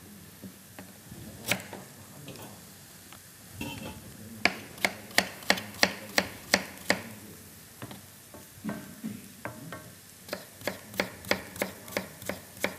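Kitchen knife chopping fresh ginger on a cutting board: a single cut, then two runs of quick sharp chops at about three a second, the second run near the end.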